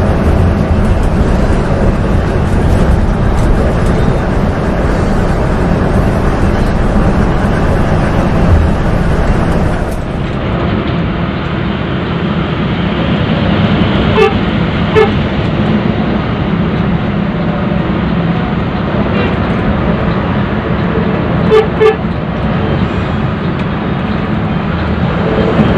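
Steady engine and road noise inside the cabin of a moving intercity coach. About halfway through, a horn gives two short toots, then two more about seven seconds later.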